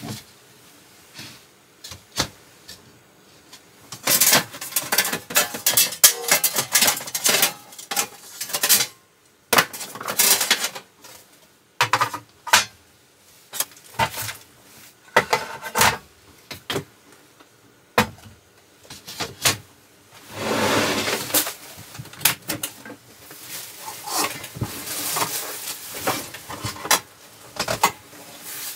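Objects being handled close up: irregular bursts of rustling and clattering, with sharp single clicks in between.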